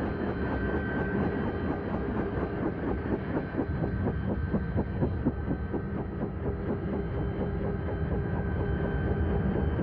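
Robinson R44 helicopter running on the ground with its main rotor turning: a steady engine and transmission hum with a fast, even beat from the blades.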